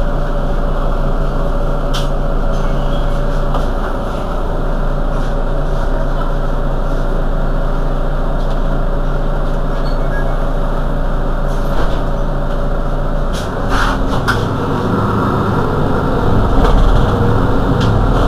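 Mercedes-Benz Citaro G C2 articulated bus's engine running steadily. About 13 seconds in there are a few sharp clicks, then the engine note grows deeper and louder.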